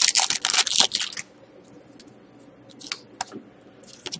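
Foil wrapper of a Panini Titanium hockey card pack being torn open and crinkled, loud for about the first second and then stopping. After that a few faint clicks of the cards being handled.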